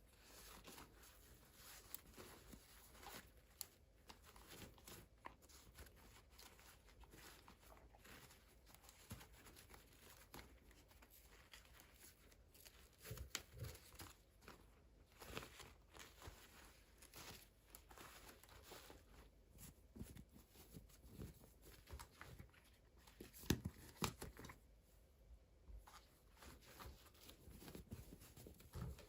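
Faint handling of toy packaging: plastic and paper crinkling and tearing, with scattered small clicks and taps, a few louder ones about halfway and near the end.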